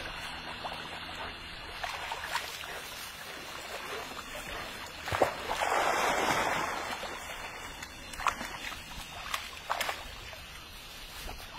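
Labrador puppies splashing as they wade and paddle into shallow pond water, with a longer, louder splash about halfway through and a few short splashes near the end.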